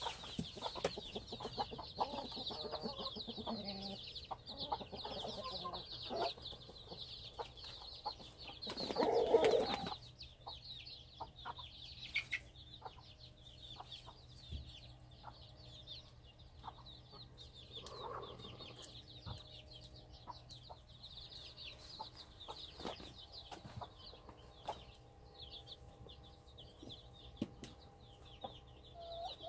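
A brood of chicks peeping continuously in high, rapid chirps, with a Cheonggye mother hen clucking over the first several seconds. A loud hen call about nine seconds in lasts about a second.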